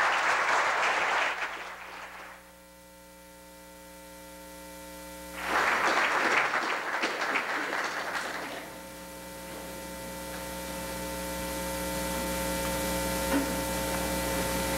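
Audience applauding in two spells: one dying away about two seconds in, and a second from about five to eight and a half seconds in. A steady hum runs underneath.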